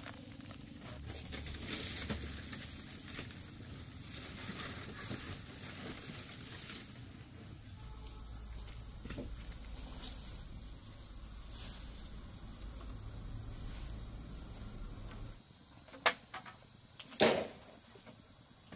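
Steady high-pitched insect trill, with two sharp knocks about a second apart near the end.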